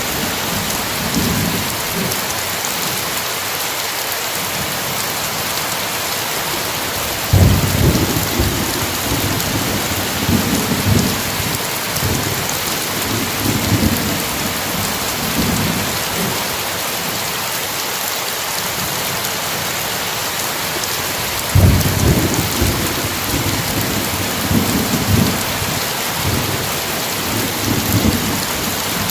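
Steady heavy rain with rolling thunder. Two peals start sharply about seven seconds in and about twenty-two seconds in, each rumbling on for several seconds.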